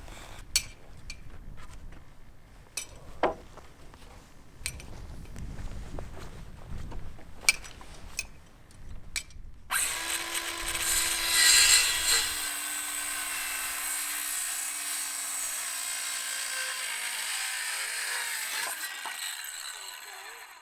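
Scattered knocks and clicks, then about ten seconds in a power tool starts suddenly and runs steadily for about nine seconds, with a held tone, before stopping.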